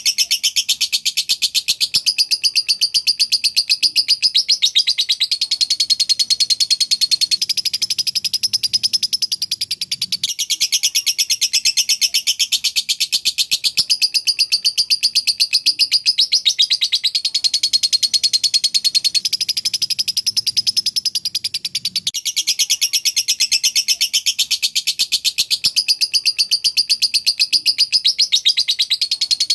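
Lovebird singing a long, rapid, nearly unbroken high-pitched chatter, the kind of extended song bird-keepers call 'semi konslet', running in phrases of several seconds with only brief dips.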